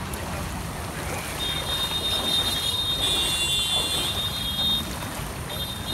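Floodwater rushing along a flooded street. A steady high-pitched tone joins it from about a second and a half in until near the end.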